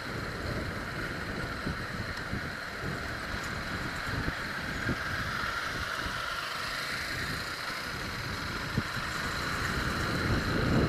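Motorcycle engine running while riding through town traffic, with wind buffeting the microphone; the sound grows somewhat louder near the end.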